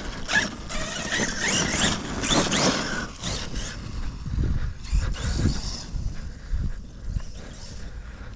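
Electric RC basher car driving, its brushless motor whining up and down in pitch with the throttle, followed by a series of low thumps a few seconds in.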